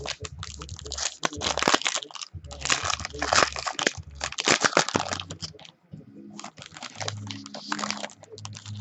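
A foil baseball card pack wrapper being torn open and crinkled, with the cards and packaging handled, in rustling bursts with a short pause past the middle.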